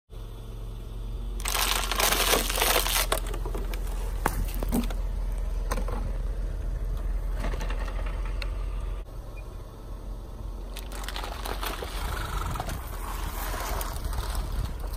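Plastic water bottles crackling and crunching as a car tyre rolls over and flattens them, with sharp cracks as the bottles give way. The loudest crunching comes a couple of seconds in, and there is more crackling near the end.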